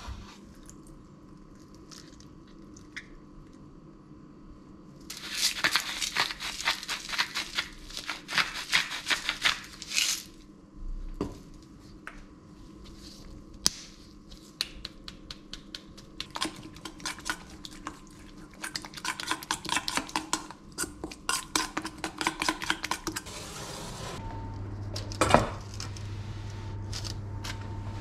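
Kitchen utensils clinking and scraping against a stainless steel bowl during food preparation, in long runs of rapid clicks. Near the end a steady hum sets in, with one loud clack soon after.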